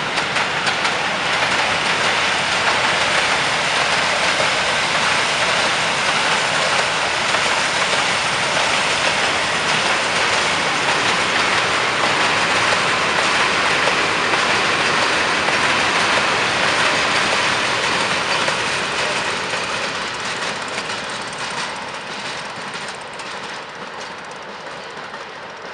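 Freight train wagons rolling past, their wheels running loud and steady on the rails. The noise fades over the last several seconds as the train moves away.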